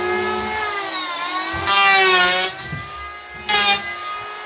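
Electric hand planer running with a steady whine, its pitch dipping as the blade bites into the wood. Louder, noisier cutting passes come about two seconds in and again briefly near the end.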